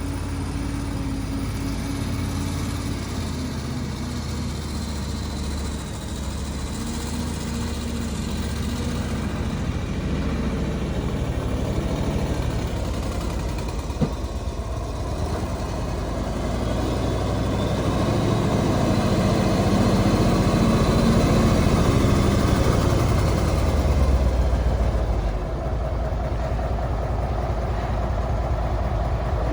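Heavy engine of an earthmoving machine running under varying load during road-building work. It grows louder through the second half and eases off near the end, with one sharp knock about halfway.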